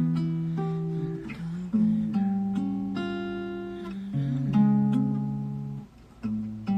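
Acoustic guitar playing chords, each held about a second before changing, with a short break near the end.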